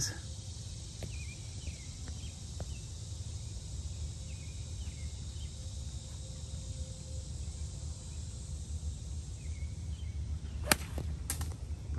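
Steady wind rumble on the microphone with faint bird chirps; about a second before the end, the sharp crack of a golf iron striking the ball, with a second click just after.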